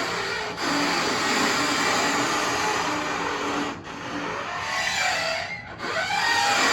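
Dishwasher parts being scraped and rubbed, giving a continuous grinding noise with squeaky, squealing tones. It breaks off briefly three times.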